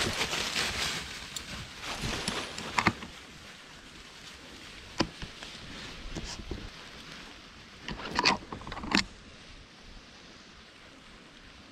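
Footsteps crunching and shuffling through deep, dry fallen leaves, with a few sharper crackles: one near three seconds in, one near five, and two close together around eight to nine seconds in.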